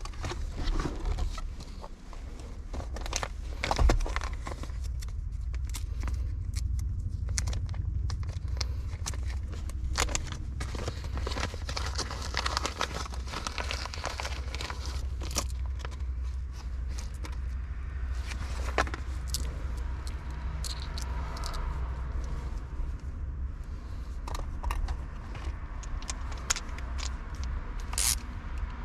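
Scattered clicks, knocks and scrapes of objects being handled, over a steady low hum.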